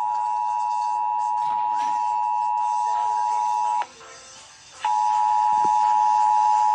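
Emergency Alert System attention signal: the steady two-tone alert, 853 and 960 Hz sounded together, announcing a Required Monthly Test. It cuts off a little under four seconds in, leaving about a second of much quieter sound, then starts up again.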